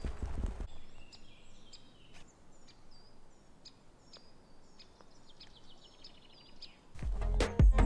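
Footsteps on a gravel trail for the first moment, then small birds calling: repeated short, high down-slurred chirps and a brief trill over a quiet background. Music comes in loudly near the end.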